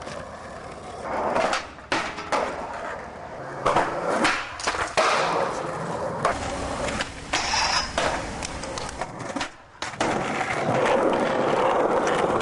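Skateboard wheels rolling on concrete, broken by several sharp clacks of the board popping and landing. About ten seconds in the rolling becomes louder and steady.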